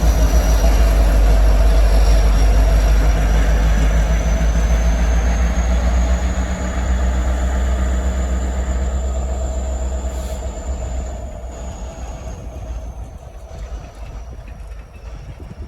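Train rolling past, its cars and wheels rumbling on the rails with some clickety-clack, fading noticeably over the last few seconds as it moves away.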